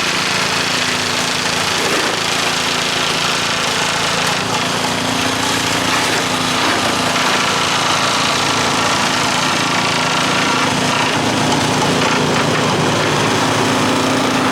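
Small engine running steadily and continuously, with an even hum and no break.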